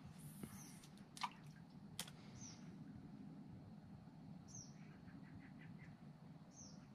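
Faint birds calling: short, high, falling chirps about every two seconds, with a quick run of soft notes near the middle. Two light clicks come about one and two seconds in.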